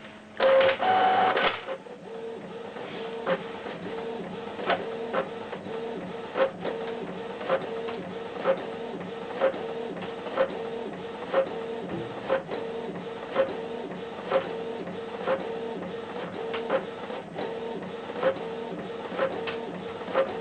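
Canon Pixma MG2470 inkjet printer printing a page. About half a second in there is a loud mechanical burst lasting about a second, then the print-head carriage shuttles back and forth with a steady pulsing motor whine and a click about once a second.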